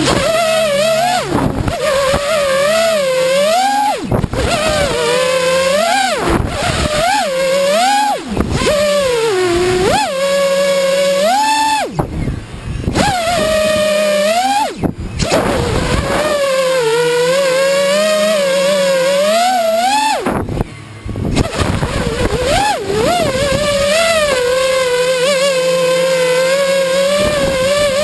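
FPV quadcopter motors and propellers whining, the pitch rising and falling constantly with the throttle. The whine drops away briefly about three times, each time picking up again.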